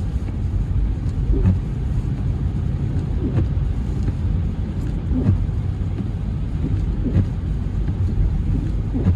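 Car being driven, a steady low rumble of engine and tyre noise heard from inside the cabin.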